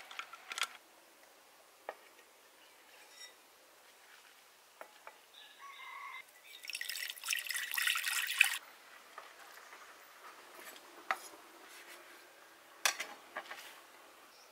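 Water poured in a stream into a clay pot, for about two seconds midway. A few light clicks and knocks come before and after.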